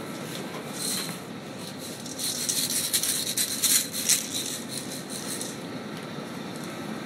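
Rustling and rubbing noises, with a cluster of short scratchy bursts from about two to four and a half seconds in, over a steady background hum.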